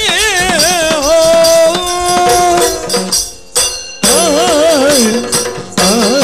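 Yakshagana sung verse: a male singer's voice waving through a heavily ornamented melody over a steady drone, with drum strokes and cymbal clashes. The voice breaks off a little after two and a half seconds and comes back about a second later.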